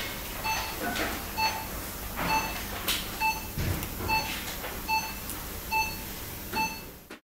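Operating-theatre patient monitor beeping with each pulse: a short beep of one steady pitch, evenly spaced a little under once a second, about 68 beats a minute. Under it, soft rustling and light clicks of instruments and dressings being handled. All sound cuts off suddenly near the end.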